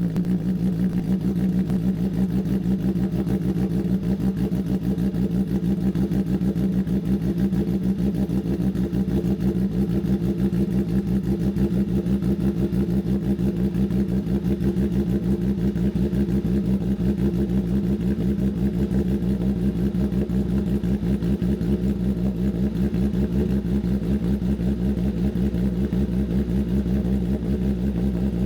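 Kawasaki ZX-10R inline-four sportbike engine idling steadily through a freshly fitted SC Project CRT exhaust, seconds after a cold start, running to check that the exhaust is sealed.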